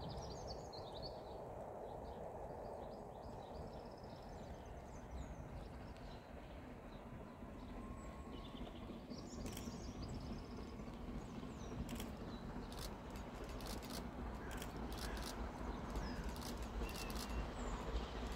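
Birds chirping over a low rumble as a distant double-headed steam train approaches, slowly growing louder. In the last six seconds a run of sharp clicks and beats from the train comes through.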